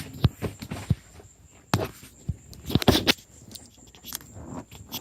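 Irregular knocks and clunks of a car seat being shifted and wrestled onto its floor bolts, with a few louder clunks about two and three seconds in.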